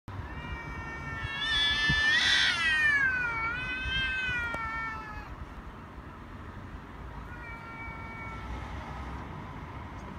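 Domestic cats squaring off nose to nose: one long, drawn-out yowl that rises in pitch, peaks loudly about two seconds in, then falls and wavers before dying away, followed near the end by a much fainter second yowl. It is a threat yowl in a territorial standoff, the warning before a cat fight.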